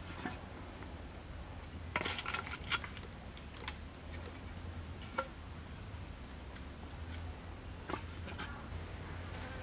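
A steady high-pitched insect call, which cuts off near the end. Over it, wooden knocks and clatters as pieces of split firewood are handled and laid down: a quick cluster about two seconds in, then a few single knocks.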